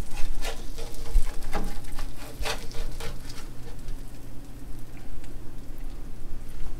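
Food sizzling in a frying pan, a steady fine crackle, with several sharp clicks and scrapes of a utensil against the pan in the first three seconds.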